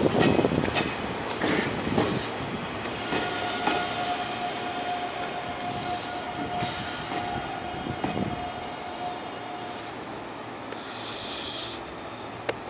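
Electric train wheels rolling slowly over depot track and points, clacking over joints. A steady wheel squeal holds for several seconds around the middle, and a higher squeal with a short hiss comes near the end.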